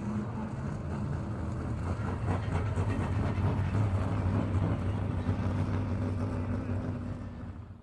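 Car engine running with a steady low hum, growing louder toward the middle and fading away in the last second.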